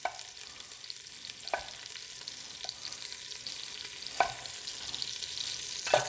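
Chopped onion sizzling in hot bacon fat in a stainless steel pot, a steady hiss. Over it, a chef's knife strikes a wooden cutting board about five times as an onion is cut.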